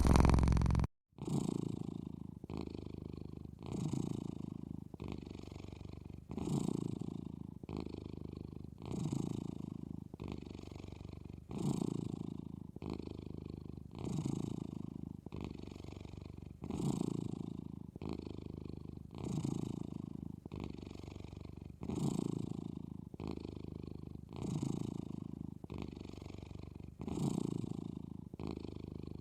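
A sleeping cat snoring, a rumbling breath that swells and fades about every two and a half seconds. A louder stretch in the first second cuts off abruptly.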